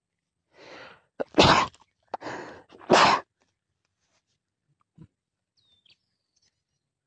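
A person sneezes twice in quick succession, each a short breath in followed by a sharp, loud burst.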